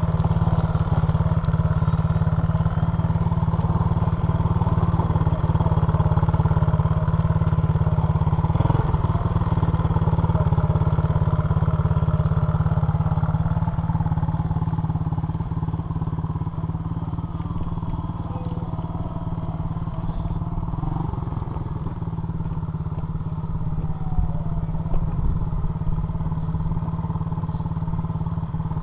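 SSR Motorsports 110cc pit bike's small single-cylinder engine running at low speed, its pitch rising and falling as the throttle is eased on and off. It grows quieter in the middle as the bike moves off, then louder again as it comes back.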